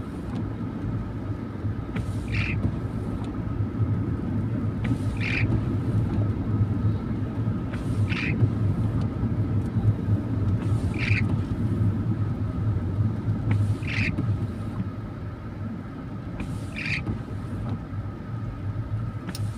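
Steady low rumble of a car's engine and tyres on a wet road, heard from inside the cabin, with the windscreen wiper making a short swipe across the wet glass about every three seconds.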